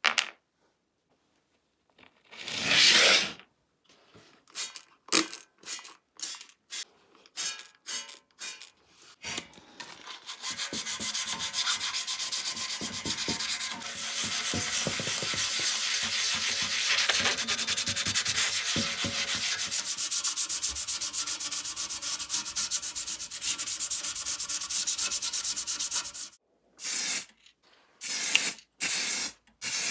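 Sandpaper rubbed by hand over the primed sheet-metal cab of a toy truck, wet-sanding. It starts as separate strokes, then becomes quick continuous rubbing for about fifteen seconds. Near the end come short hisses of spray paint.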